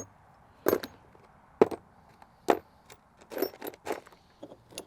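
Metal motorcycle parts, brackets and bolts, being handled and set down, giving about six sharp clinks and knocks at irregular intervals.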